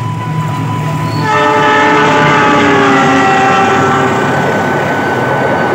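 Diesel locomotive horn sounding one long blast as the train runs past, starting about a second in, its pitch dropping as the locomotive goes by, over the noise of the passing train.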